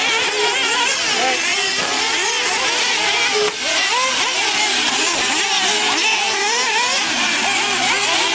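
Several nitro RC buggies' small two-stroke glow engines screaming at high revs and dropping off through the corners, their overlapping whines sliding up and down in pitch.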